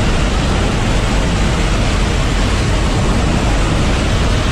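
Steady, loud rush of a military transport aircraft in flight, heard from inside the cabin at the open paratroop door: engine noise and the slipstream blowing past the doorway.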